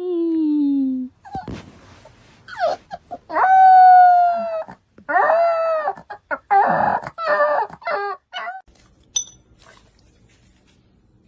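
A dog howling and whining in a run of drawn-out pitched cries: a falling cry at the start, a long held one about three seconds in, then a string of shorter ones.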